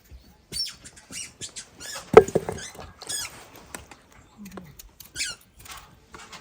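A run of short, high, wavering animal chirps and squeaks, with one sharp knock about two seconds in.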